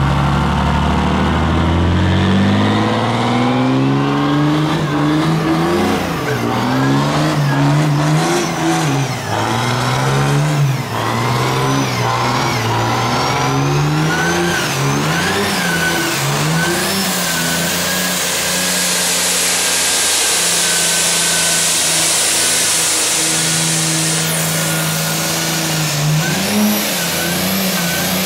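1949 Ford F1 pickup's twin-turbo diesel engine revving hard during a burnout, its pitch climbing in the first two seconds and then rising and falling as the throttle is worked. The rear tyres spin against the pavement, and a high tyre hiss grows louder past the middle.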